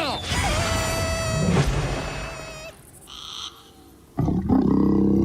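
Cartoon sound effects: a steady buzzing drone for about two and a half seconds, then after a brief lull a loud, low growl-like cry begins about four seconds in.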